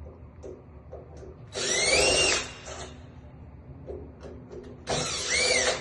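Power drill run twice in short bursts, backing out the lock's screws; its motor whine rises and falls each time.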